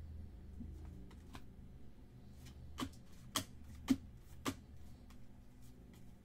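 Trading cards being handled and set down on a table: a few faint taps, then four sharper clicks about half a second apart around the middle.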